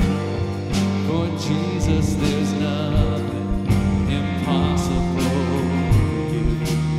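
Live worship band music: a man sings two phrases over a strummed electric guitar and keyboard, with a steady beat.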